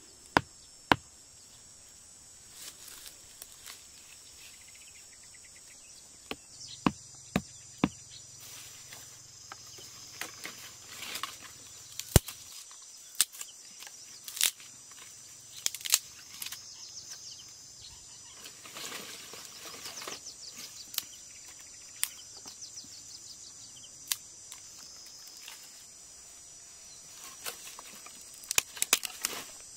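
A steady high insect buzz with scattered sharp knocks and snaps over it: a machete knocking a wooden stake into the ground at the start, then dry sticks being snapped and laid down.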